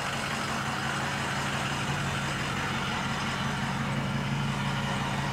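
2005 Ford F-250 pickup's engine idling with a steady, even hum.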